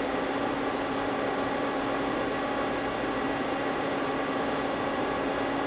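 Steady hum and hiss of a powered-up Mazak CNC lathe standing at idle, with one low steady tone under an even hiss.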